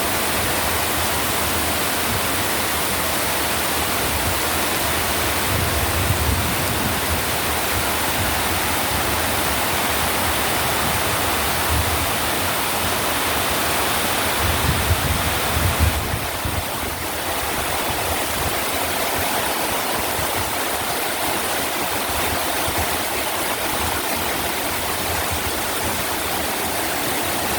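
Steady rush of running water, with a few brief low rumbles about six seconds in and again around fifteen seconds in.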